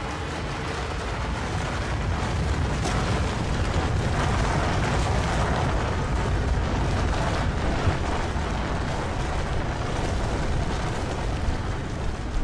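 A deep, steady rumbling roar with hiss over it, swelling over the first few seconds and then holding: an avalanche rumble laid in as a sound effect.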